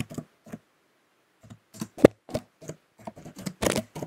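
Computer keyboard keys clicking as words are typed, in irregular runs of keystrokes with a pause of about a second shortly after the start.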